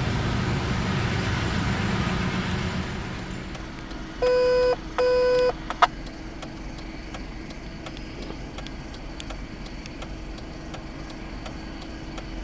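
A loud passing rumble fades away over the first three seconds. About four seconds in come two short, identical single-pitch beeps, then a brief chirp and a faint steady hum.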